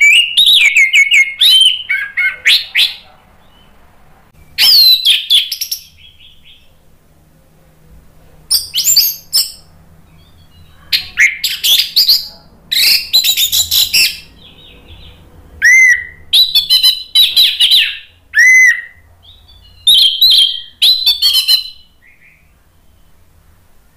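Orange-headed thrush singing loud, varied whistled phrases in about six bursts with short pauses between them. This is the full, open song of a bird in form.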